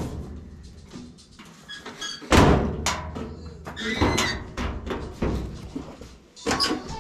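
Knocks and clunks from a Whirlpool dryer's sheet-metal cabinet panels being handled and refitted, the loudest about two seconds in, with a few brief squeaks between them.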